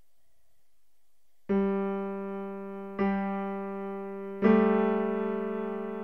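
Background piano music: quiet for about a second and a half, then three slow, separate piano notes or chords, each struck and left to ring and fade.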